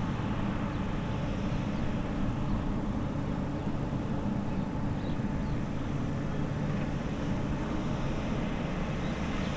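Airbus A330's twin jet engines at takeoff power, heard from afar as a steady low rumble while the airliner rolls away down the runway.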